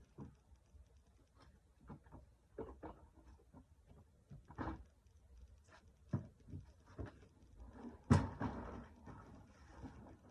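Irregular clicks and knocks of objects being handled and packed away, with one louder thump about eight seconds in.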